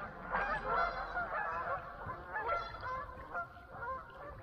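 A flock of geese honking over and over, many short calls overlapping, thickest in the first couple of seconds: the birds are agitated.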